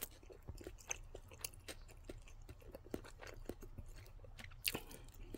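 A person chewing a mouthful of crispy barbecue chicken wing close to the microphone: quiet, irregular small clicks and crunches.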